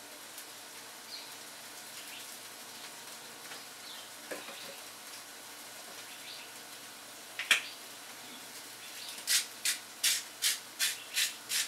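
A sharp click about seven seconds in, then a salt grinder twisted about seven times in quick rhythm near the end, grinding rock salt, each turn a gritty crunch. Under it, a faint steady hiss.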